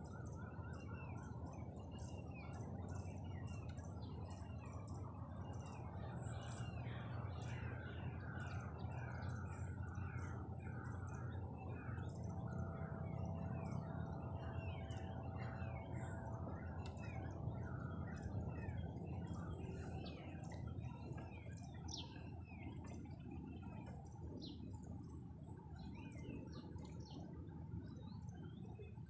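Many birds chirping in quick repeated notes over a steady low rush of wind on the microphone.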